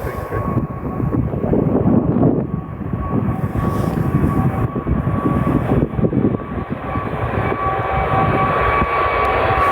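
Airbus A380's four jet engines at takeoff thrust: a loud, uneven rumble with a steady high whine running through it, growing a little louder toward the end.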